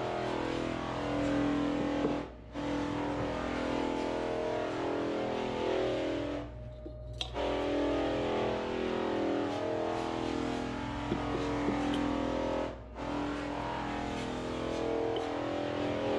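Background music with guitar, with three brief breaks in it.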